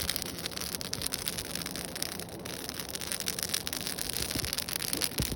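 Freshly lit wood fire crackling, with many rapid small pops and snaps over a steady hiss.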